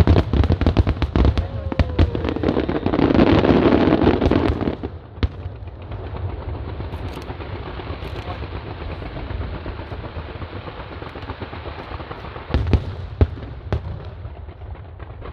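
Fireworks going off in rapid crackling volleys of bangs, loudest about three to five seconds in, then dying down to a steady crowd hum broken by a few more bangs near the end.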